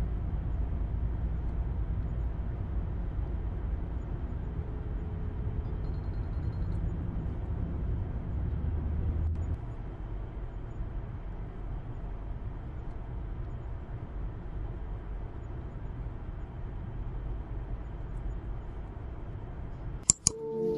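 Road and engine noise inside a moving car: a steady low rumble with hiss, a little quieter from about halfway through. A couple of sharp clicks near the end.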